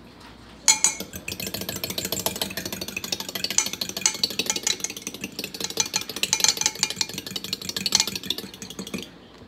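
A fork whisking two eggs in a glass measuring cup: a fast, steady clatter of the tines striking the glass, starting about a second in and stopping shortly before the end.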